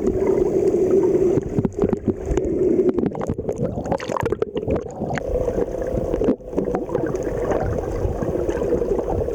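Boat motor running steadily, its pitch dropping at the start and rising again about halfway through as the engine speed changes, with water splashing against the hull.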